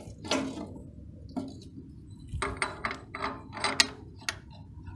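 A steel blade flange being worked onto a log saw's motor shaft against the blade. It makes a run of quick metallic clicks and clinks in the second half.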